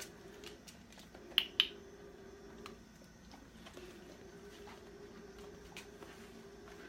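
A dog-training clicker clicking twice in quick succession, a press and release, about a second and a half in, marking the dog's touch on the target stick. Faint scattered light ticks and a faint steady hum lie underneath.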